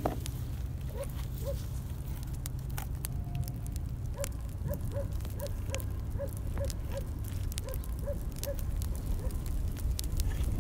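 Small wood campfire crackling with sharp pops under a steady low rumble. From about four seconds in, an unseen animal gives a run of a dozen or so short, evenly spaced calls, two or three a second.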